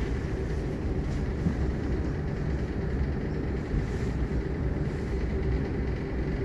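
Moderus Alfa tram under way, a steady low noise of wheels on rails and running gear with no distinct events.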